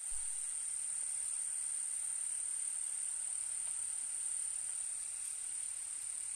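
Steady high-pitched insect chorus buzzing without a break, over a faint hiss.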